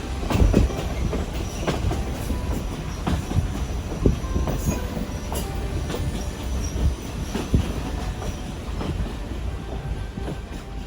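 Train running on the track: a steady low rumble with irregular clacks and knocks from the wheels and cars, and faint high wheel squeals.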